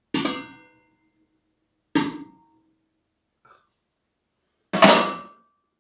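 A metal lid clanks three times against a large enamel stockpot as it is put on, each clank with a short ringing tail. The third, near the end, is the loudest.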